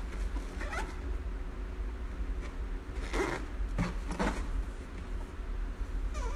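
A cardboard box and a paper leaflet being handled and rubbed, giving a few short scraping rustles. The loudest come about three to four seconds in. A steady low hum runs underneath.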